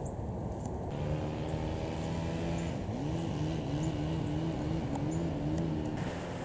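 A motor vehicle's engine running steadily; its pitch dips and climbs again about three seconds in, as when a car shifts gear and pulls away.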